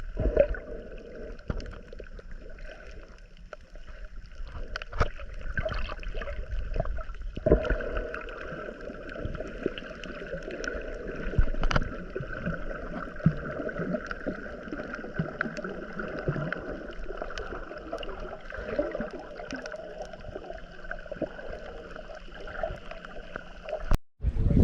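Water splashing and gurgling around a boat under way, with scattered small knocks.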